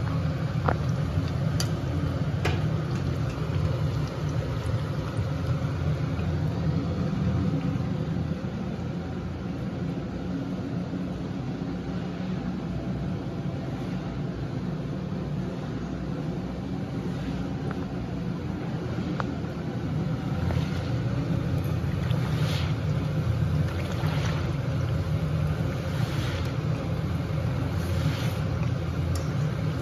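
Malpua batter deep-frying in oil in an iron kadhai: steady sizzling over a low running hum, with a few clicks and scrapes of the steel slotted spatula against the pan near the start and several more in the last third.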